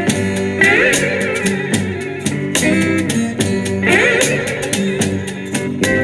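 Slow blues music: slide guitar phrases glide between the sung lines, over a steady bass and drum backing.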